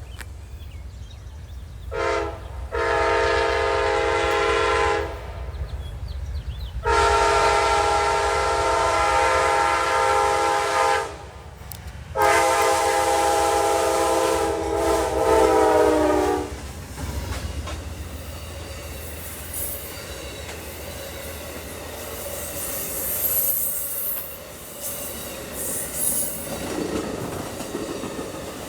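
Locomotive air horn sounding a chord in a short blast and three long blasts over the low rumble of a passing train; after the horn stops, about sixteen seconds in, the train rolls on with wheel and rail noise and faint squeals.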